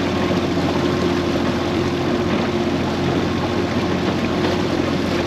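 A tinny's outboard motor running steadily at low trolling speed, with water and wind noise around it.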